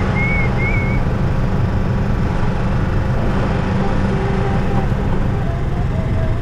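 Golf cart under way, its motor giving a steady low drone at a constant pace, with three short high chirps in the first second.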